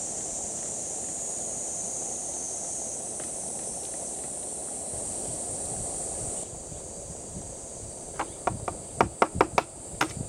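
Insects shrilling steadily. Near the end comes a quick, uneven run of about eight sharp taps: an egg being knocked against the rim of a small metal bowl to crack it.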